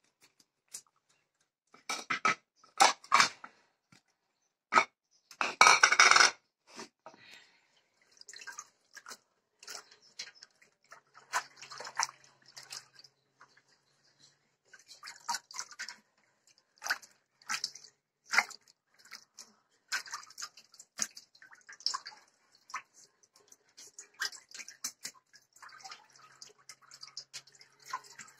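Wet hands scooping and squeezing a lump of fresh butter in the buttermilk left from churned yogurt, in an enamel pot: splashes, squelches and buttermilk dripping back into the pot. The sounds come irregularly and are loudest in the first several seconds.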